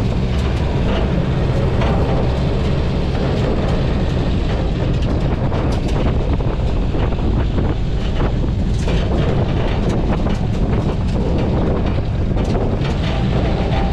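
Car engine running as the car is driven slowly, a steady low rumble with scattered light ticks.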